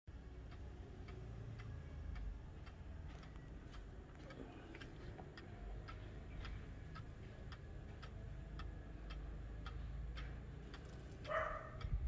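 Black Forest pendulum wall clock with a wooden-plated movement ticking steadily, each tick a small, even click. A short pitched sound is heard shortly before the end.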